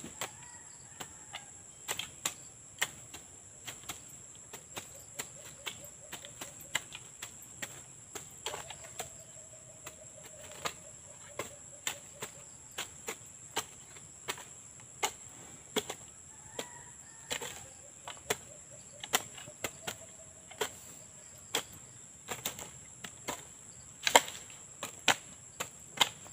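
Two long-handled hand hoes chopping into sticky soil while weeding between young corn plants: irregular sharp strikes, about one or two a second, a few louder ones near the end. A steady high-pitched tone runs underneath.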